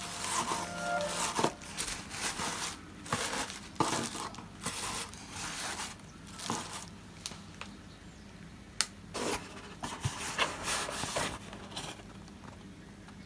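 Shredded packing fill rustling and crinkling as hands tuck it around a bubble-wrapped bottle in a cardboard box: irregular scratchy rustles, busier in the first half, with one sharp tick about nine seconds in.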